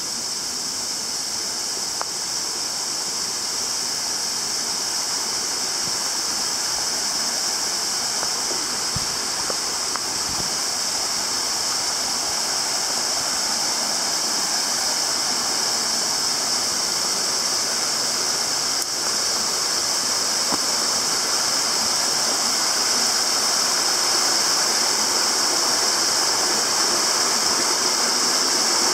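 Small mountain stream rushing steadily, running somewhat high after heavy rain, growing gradually louder.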